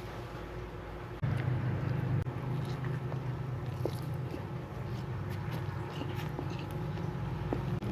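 Close-miked eating: scattered soft clicks of biting and chewing. A steady low hum comes in suddenly about a second in and carries on under them.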